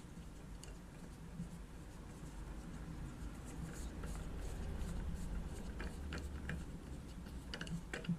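A black plastic screw under a toilet cistern's flush-button housing being unscrewed: faint scratching and small clicks, more of them in the second half, over a low hum.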